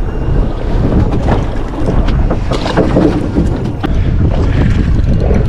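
Wind buffeting the microphone on a small fishing boat at sea, a steady low rumble with faint knocks and splashes through it.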